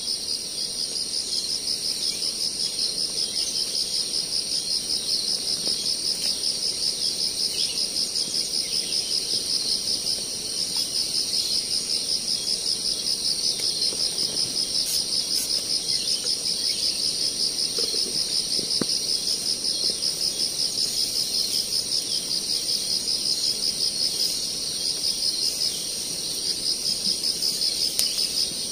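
Loud chorus of insects: a high, rapidly pulsing trill with a steadier, higher buzz above it. It dips briefly about ten seconds in and again near the end, with a couple of faint knocks in between.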